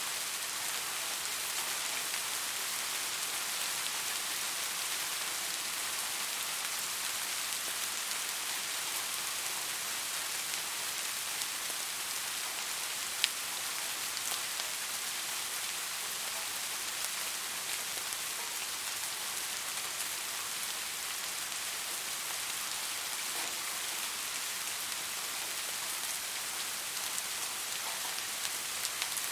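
Soft rain falling steadily, an even hiss of many small drops on a surface. One single sharp drop tick stands out about halfway through.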